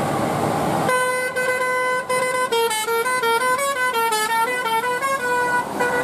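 Telolet horn on a passing coach bus: a multi-note air horn that starts about a second in with a held chord, then plays a quick tune of notes stepping up and down, stopping just before the end. Engine and road noise of the bus lie underneath.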